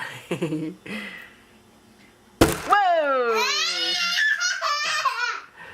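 A sharp thump a couple of seconds in, followed by a young child's high-pitched squealing laughter that slides down in pitch and breaks into giggles.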